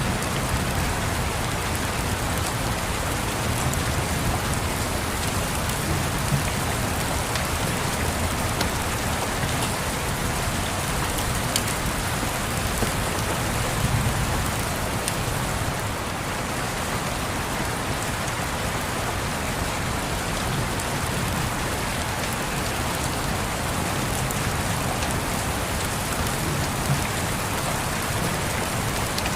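Steady rain pattering on a surface, with a low rumble underneath that swells briefly about halfway through and a few scattered light crackles.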